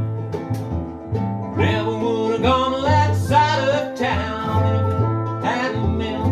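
Small acoustic string band playing a country-style song. A bowed cello plays a pulsing low bass under resonator guitar, pedal steel and ukulele, with a melody line that bends in pitch through the middle.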